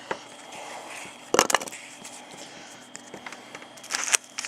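Trading card pack wrapper and cards being handled: short crinkles and rustles, loudest about a second and a half in and again near the end.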